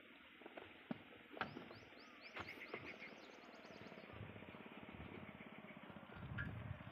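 Faint clicks and knocks of hands working at a small diesel water-pump engine. From about four seconds in there is a faint fast, steady mechanical ticking.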